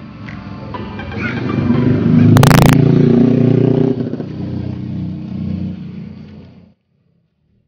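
A road vehicle's engine passing close by and speeding up, loudest about two to four seconds in, with a brief sharp crackle near its peak. The sound cuts off suddenly near the end.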